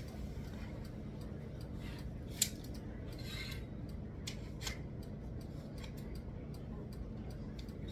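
Scattered light clicks and a short scrape as parts are handled during assembly, with one sharper click about two and a half seconds in.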